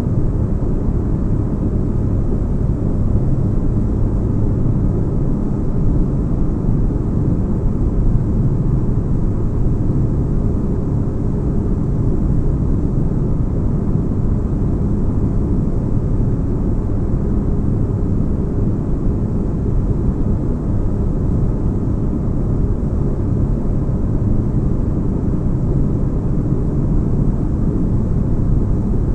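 Spaceship cabin ambience: steady white noise with deep bass, an unchanging low hum with faint steady tones in it.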